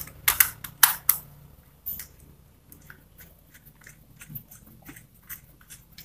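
Sharp plastic and metal clicks from working a wire into a contactor's screw terminal with a screwdriver: four loud clicks in the first second, then a run of fainter small ticks.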